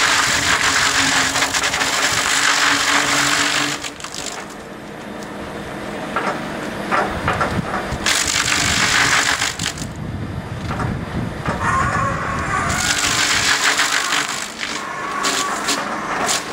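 Butt end reducer's bottom-mounted milling shaft cutting away the root flare of a log held in a crane grapple: three loud spells of chip-cutting noise, the first about four seconds long, with lower machine rumble between them.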